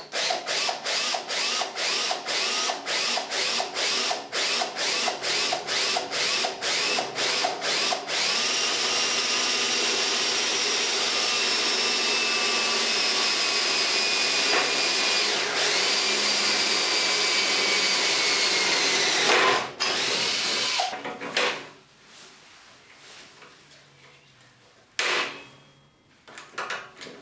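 Power drill boring through aluminium checker plate into steel angle iron. For the first eight seconds or so it runs in quick short pulses, about two or three a second, then runs steadily with a high whine and stops about twenty seconds in. A sharp snap comes about twenty-five seconds in, as a hand riveter sets a blind rivet.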